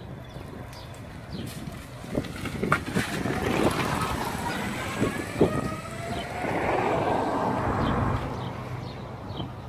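Small electric utility truck driving past close by and pulling away, its electric motor whining and rising in pitch as it gathers speed. Wind buffets the microphone, with a few light clicks.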